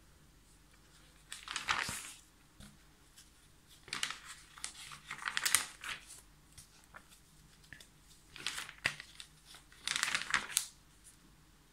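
Glossy magazine pages being turned and handled: papery rustling and crinkling in several short bursts, with quiet between them.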